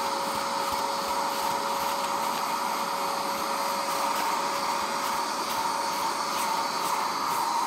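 Portable carpet spot cleaner running steadily, its suction motor giving a constant hum with a whine as the nozzle is drawn over wet carpet, sucking cleaning fluid back out of the pile.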